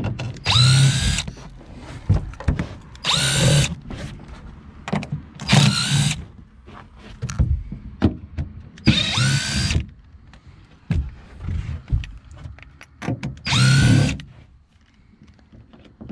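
Cordless screwdriver backing screws out of a carpeted boat floor panel: five short runs of about a second each, the motor whine rising in pitch as it spins up each time, with light clicks of handling between.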